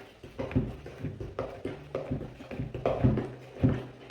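A spoon knocking against a mixing bowl as cake batter is stirred by hand, an uneven run of knocks about twice a second.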